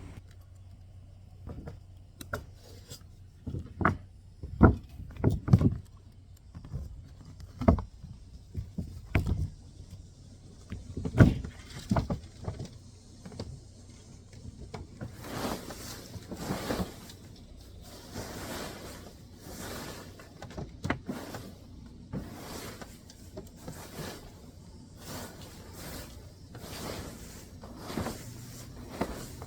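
Roof clean-up work: irregular knocks and thumps of debris and tools on the roof, then, from about halfway, repeated rustling scraping strokes roughly once a second as dead leaves are cleared.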